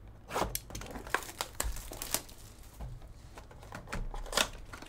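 Plastic wrap being torn and crinkled off a sealed trading-card box, with irregular crackles and a few sharper snaps, the loudest just after the start and again about four and a half seconds in.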